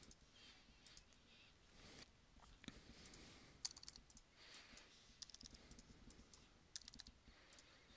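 Faint computer keyboard typing and mouse clicks: scattered single clicks with a few short runs of keystrokes.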